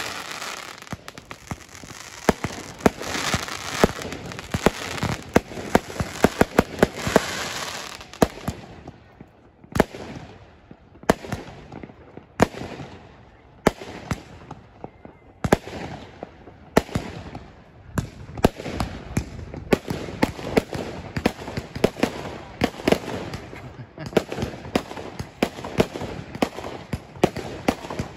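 Fireworks going off: a dense run of crackling bangs for the first several seconds, then single sharp bangs about a second or so apart, then rapid bangs again.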